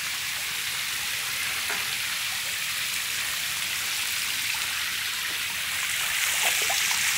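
Steady rain-like rushing and pattering of water in a tank crowded with tilapia fry. About six seconds in, a plastic strainer is dipped into the water: the water gets a little louder and there are a few light splashes.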